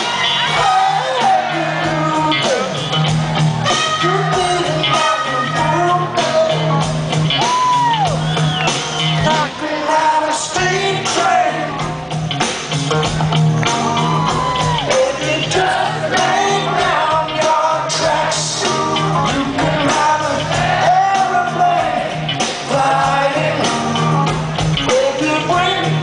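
Live rock band playing, with a male lead singer singing and shouting over drums, keyboards and a bass guitar line that repeats steadily, heard from among the audience.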